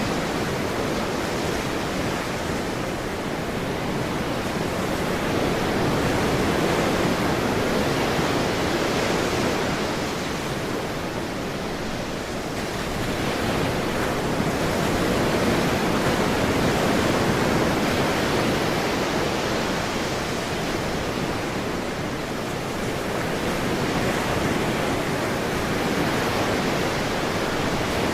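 Ocean surf: a steady rush of waves washing ashore, swelling and ebbing slowly, with about three swells, each several seconds long.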